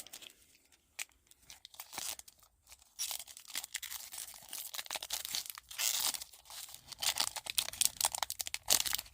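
A trading-card booster pack wrapper being torn open and crinkled by hand. It is mostly quiet with a few light clicks at first, then turns to dense crinkling and tearing from about three seconds in.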